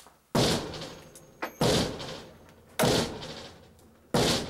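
Heavy sledgehammer blows striking the cabin's logs: four hard strikes about a second apart, each dying away with a short echo.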